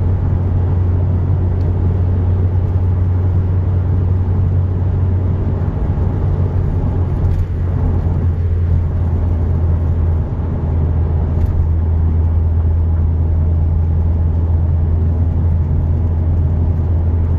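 Cabin sound of a 2006 Honda Civic Si on the move: its replacement K20Z3 2.0-litre four-cylinder engine and road noise make a steady low drone. The level dips briefly twice, about six and ten seconds in.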